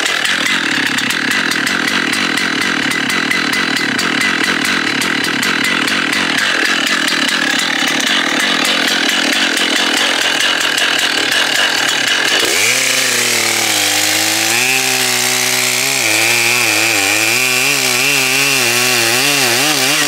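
Stihl 088 Magnum two-stroke chainsaw running at high revs, cutting into a large log. About twelve seconds in, the sound changes abruptly to a lower note that wavers up and down as the saw works in the cut.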